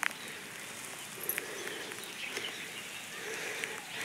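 Faint outdoor ambience on a misty hillside: a steady low hiss with a few soft ticks.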